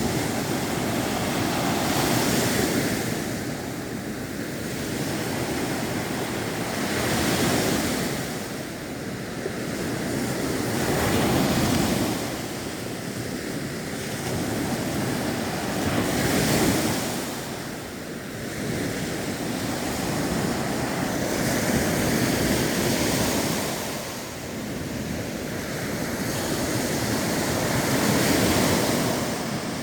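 Baltic Sea waves breaking and washing in, surging and falling back about every four to six seconds.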